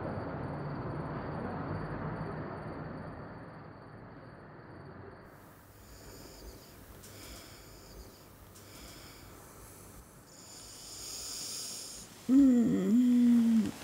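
A low, steady city rumble fades out. Then come slow, hissy sleeping breaths, and near the end a loud, drawn-out voiced moan as a sleeper stirs awake, its pitch bending up and down.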